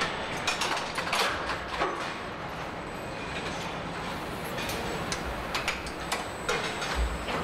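Car assembly-line machinery running: a steady hum with irregular metallic clicks and clunks, bunched in the first two seconds and again in the second half, ending with a low thud.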